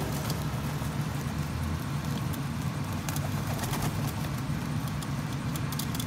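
Rock pigeons landing and moving about on a rooftop ledge, with a few sharp clicks and light pattering from their wings and feet, over a steady low hum.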